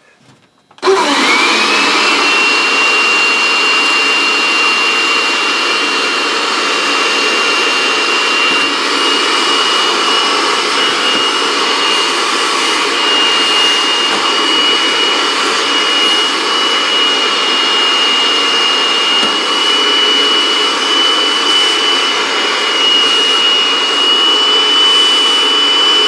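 Bissell SpotClean ProHeat portable carpet cleaner switched on about a second in: its suction motor spins up with a rising whine, then runs loud and steady, a high whine over the rush of air. It is picking up water through a newly fitted hose, and the suction is working well.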